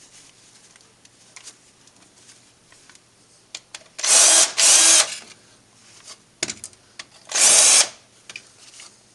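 Cordless drill run in three short bursts, two close together about four seconds in and one shortly before the end, with a small bit boring packed old oily crud out of a hole in a lathe bed.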